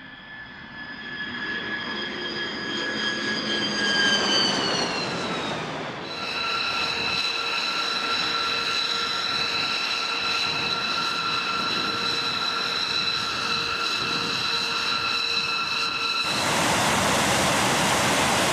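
Jet engines of a Northrop Grumman B-2 Spirit, its four F118 turbofans. A high whine of several tones falls in pitch and swells as the bomber passes. After a cut, a steady high jet whine holds. A loud even rushing noise takes over near the end.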